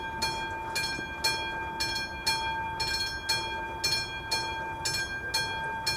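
Level-crossing warning bell on AŽD 71 crossing signals, a classic mechanical bell struck in a steady rhythm of about two strokes a second, each stroke ringing on. It is the crossing's active warning that a train is approaching and the road is closed.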